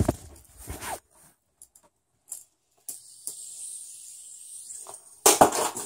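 Knocks and rustling from a hand handling the recording device close to its microphone. A soft steady hiss lasts about two seconds in the middle, and a cluster of louder knocks and rustles comes near the end.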